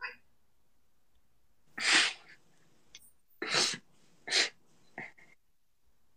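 Four short, breathy bursts from a person, the first and loudest about two seconds in, then three more in quick succession.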